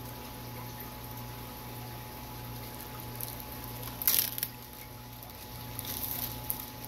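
Aquarium filter and pump equipment humming steadily under a soft wash of moving water. About four seconds in comes a short, loud splash, and a few smaller splashes and crackles follow near the end.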